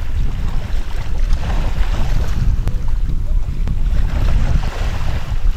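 Wind buffeting the microphone in a steady low rumble, with the sea washing in the background.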